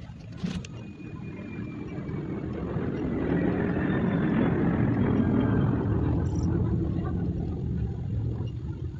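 A vehicle passing by, growing louder to a peak about halfway through and then fading away, with a faint high tone that slides slowly down in pitch.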